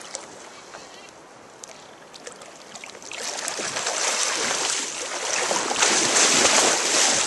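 Splashing in a shallow river: a hooked steelhead thrashing at the surface, then from about three seconds in louder, continuous splashing as an angler wades through the water in waders.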